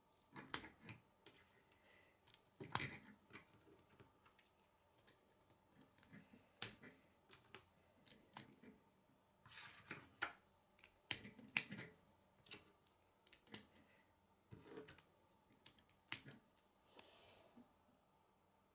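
Plastic K'nex rods and connectors snapping and clicking together by hand as pieces are fitted, a quiet, irregular string of sharp clicks with some handling rattles in between.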